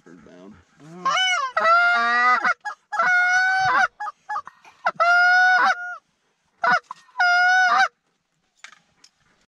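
A hunter blowing a goose call to draw in flying Canada geese: a series of loud honks, about four held close to a second and each breaking upward in pitch as it starts, with short clucks between them. The calling stops about a second before the end.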